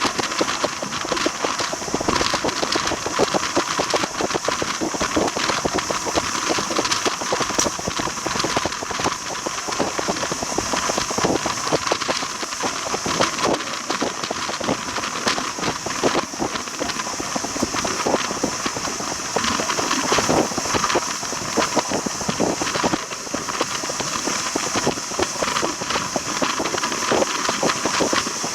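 Train running at a steady pace, with continuous dense rattling and clattering from the wheels and running gear.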